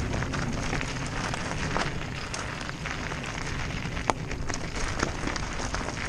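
Mountain bike tyres crunching over loose rock and gravel on a fast descent, with sharp clicks and rattles from stones and the bike and a steady low rumble underneath. The sharpest clicks come about four and five seconds in.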